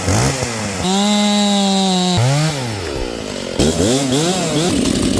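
A 50cc STIHL two-stroke chainsaw revving up and down several times. It holds one steady high note at full throttle for about a second, and the sound changes abruptly about three and a half seconds in.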